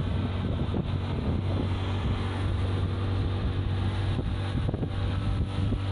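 A boat's engine running steadily with a low hum, with wind buffeting the microphone.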